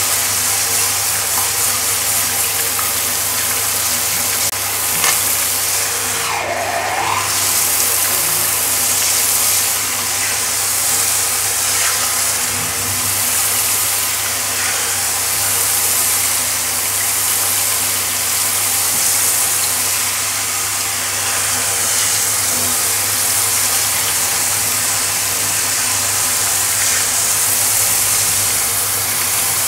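Water spraying steadily from a handheld pet-bath shower head onto a tiled floor.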